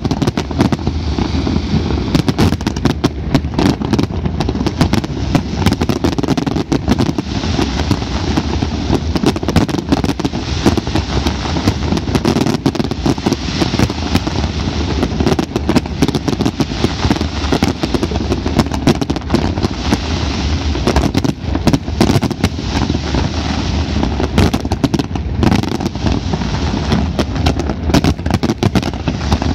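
Fireworks display at full barrage: many aerial shells bursting in rapid succession, their bangs running together into a continuous din with crackling, with no let-up.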